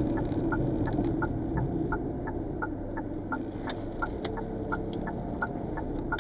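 Car turn-signal indicator clicking in an even tick-tock, about three clicks a second, over the low hum of the engine and road noise inside the cabin.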